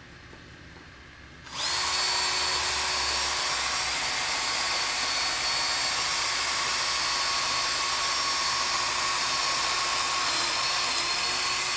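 Cordless drill switching on about a second and a half in and then running steadily, its bit boring down into a wooden board, with a constant motor whine over the cutting noise.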